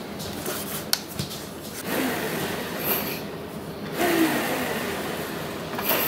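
Handling noise as a DJ controller's metal chassis is turned over and set down on a towel. There is a sharp knock about a second in, then rubbing and shuffling.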